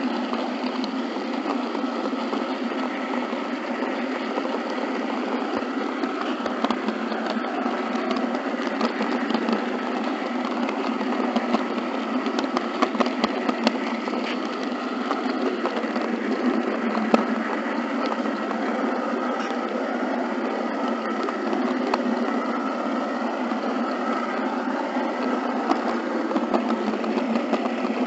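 Running noise of an HO scale model train carrying the camera along the track: a steady rattly whir with scattered fine clicks, a few louder clicks near the middle.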